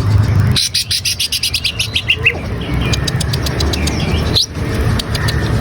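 Green leafbird (cucak ijo) singing a fast, varied song of chirps, clicks and whistled notes, over a steady low rumble.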